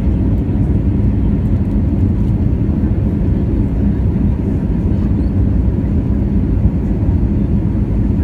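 Steady cabin noise inside an Airbus A320-200 airliner: a low, even rumble of engines and airflow with a faint steady hum, unchanging throughout.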